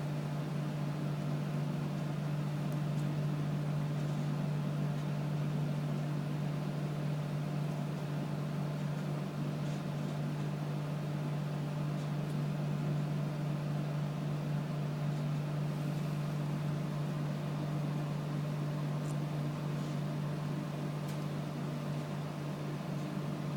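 A steady low machine hum, unchanging throughout, with a few faint small clicks over it.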